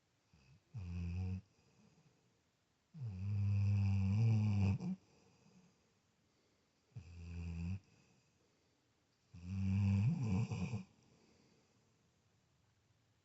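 Labrador retriever snoring: four snores a few seconds apart, the second and fourth longer and louder than the others.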